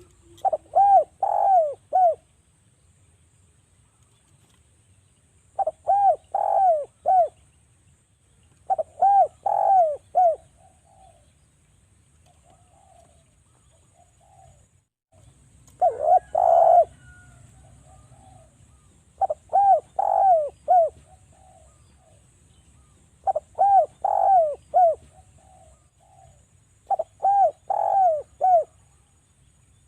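Spotted dove (derkuku) cooing: about seven phrases of three or four quick coos each, several seconds apart, with a few softer notes between them.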